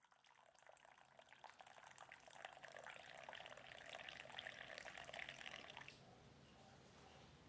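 Coffee being poured into a mug: a faint splashing trickle that builds up and stops abruptly about six seconds in.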